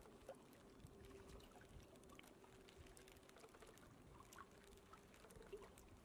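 Near silence: faint lapping and trickling of water, with scattered small ticks.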